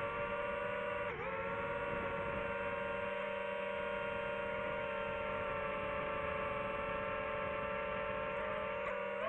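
DJI FPV drone's motors and propellers whining at a steady pitch in level cruise. The pitch dips briefly about a second in as the throttle eases.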